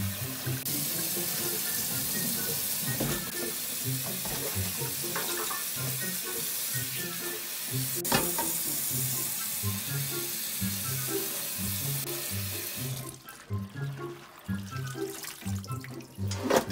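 Tap water running into a sink while hands swish and rinse cut leafy greens (young radish and winter-grown napa cabbage) in a tray. The running water stops about three-quarters of the way through, and near the end a loud wet slap as a handful of leaves goes into a metal bowl. Background music with a steady beat plays throughout.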